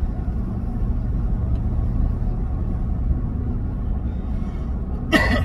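A steady low rumble with a faint hiss, and a brief sharp noise near the end.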